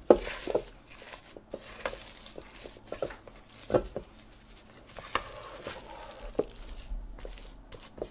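Silicone spatula scraping and folding thick chocolate chip cookie dough in a stainless steel mixing bowl: irregular soft scrapes with occasional sharper knocks of the spatula against the bowl.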